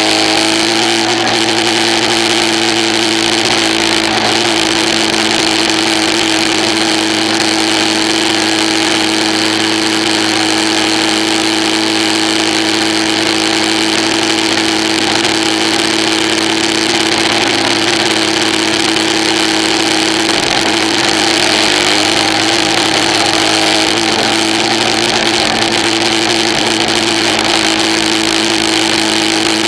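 An engine running at a steady speed: a constant drone that barely changes in pitch.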